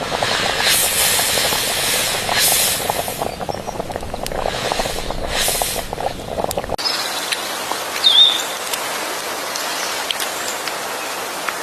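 Cooking over an open fire: a steady hiss with fine crackling that swells three times, then changes abruptly about seven seconds in to a thinner, even hiss with one short chirp.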